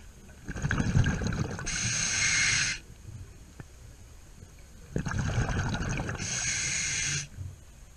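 Scuba diver breathing through a regulator underwater: two breaths, each a low bubbling rumble of exhaled air followed straight away by the hiss of an inhale, with a quieter pause of about two seconds between them.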